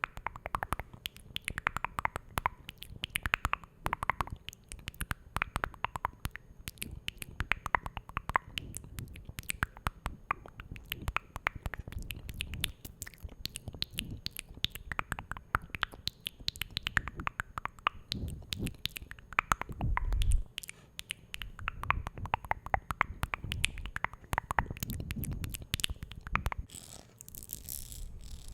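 Close-miked ASMR mouth sounds: rapid wet clicks and pops, many a second, with a low rumble underneath. Near the end a brief soft hiss takes over.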